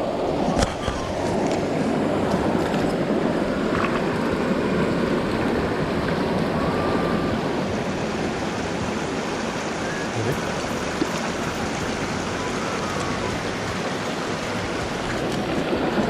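Shallow mountain stream rushing steadily over rocks, close to the microphone. A few sharp handling knocks come within the first second and again around four seconds in.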